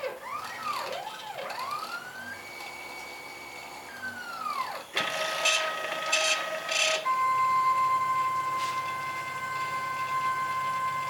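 CNC router's stepper motors whining as the machine moves: the pitch rises and falls in repeated arcs as the axes speed up and slow down. About five seconds in come a few short, harsher bursts, and a steady whine then holds.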